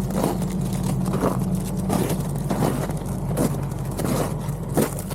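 Kubota tractor engine running steadily, with short scraping sounds repeating about every half second over it.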